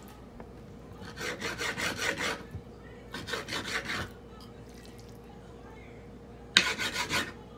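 Kitchen knife sawing back and forth through raw beef on a plastic cutting board: quick rasping strokes, about seven a second, in three bouts. The last bout, near the end, starts sharply and is the loudest.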